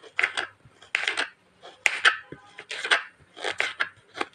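Small knife slicing fresh ginger into thin julienne strips on a cutting board, each cut a short crisp stroke against the board, about two a second.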